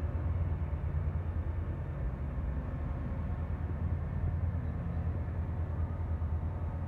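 Low, uneven rumble of diesel trains running at a station platform, with a TransPennine train pulling away into the distance.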